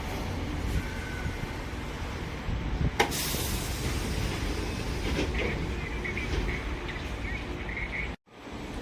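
Sanyo Electric Railway train at the platform: a steady low rumble, with a sharp burst of hissing air about three seconds in and faint high squeaks after it. The sound cuts out briefly near the end.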